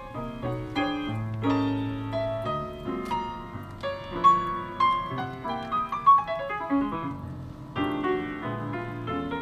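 Piano music with quick runs of notes and chords, played over a car's audio system and heard inside the cabin.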